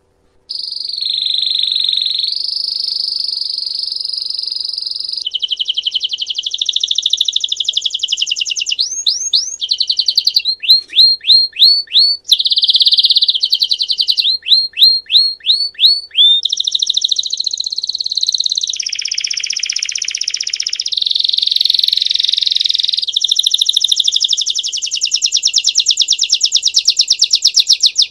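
Domestic canary singing a long, loud, unbroken song of rapid trills and rolls, starting about half a second in, with a stretch of repeated quick upward-sweeping notes in the middle; a bell-like 'campainha' style song used to teach young canaries.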